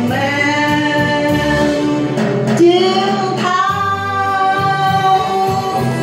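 A woman singing long held notes into a microphone over instrumental accompaniment: the drawn-out closing notes of a Vietnamese ballad. There is a short break about two and a half seconds in, then a new note that steps up in pitch and is held.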